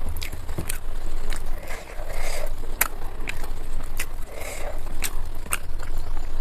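Close-miked eating sounds from chewing a mouthful of chicken biryani: sharp wet mouth clicks and smacks several times over, over a low steady hum.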